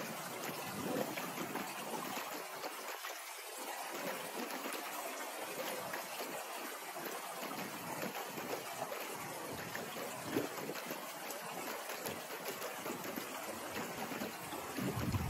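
Shallow river water flowing and trickling over rocks, a steady rushing hiss, with a brief low rumble near the end.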